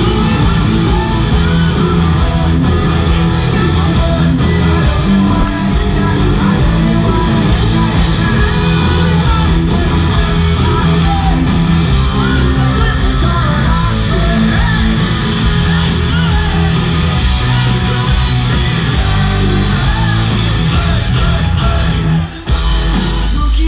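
Punk rock band playing live through a concert PA: loud distorted electric guitars, bass and drums. There is a brief drop about 22 seconds in before the music carries on.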